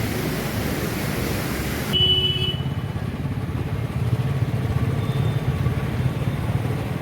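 An engine running steadily with a low hum. For the first two seconds it is masked by a loud, even hiss that stops abruptly, and a short high beep sounds near the two-second mark.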